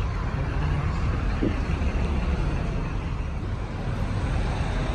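Steady low rumble of background noise with no distinct events, and a faint voice briefly about a second and a half in.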